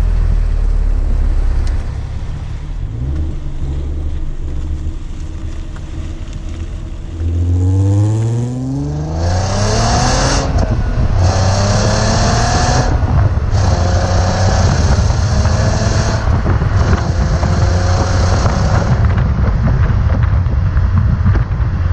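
Stock VW Golf IV VR6 2.8-litre engine and original exhaust running low and steady, then revving up about seven seconds in. It holds higher revs in several surges with brief dips between them, then settles near the end.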